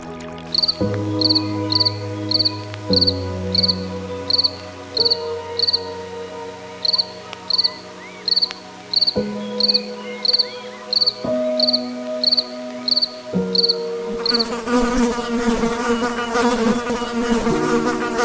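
Insect chirping in a steady rhythm of about two short, high chirps a second, over held tones that change pitch every few seconds. Near the end the chirps stop and a wavering buzzing takes over.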